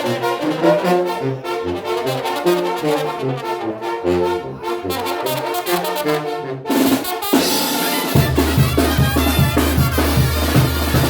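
Banda brass band playing an instrumental passage: trombones and trumpets over a moving tuba bass line. About two-thirds in, the band shifts to a steady low bass under a regular drum beat.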